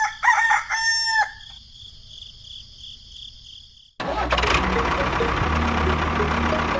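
A rooster crowing once, then a quieter stretch. About four seconds in it cuts suddenly to background music over a steady low rumble.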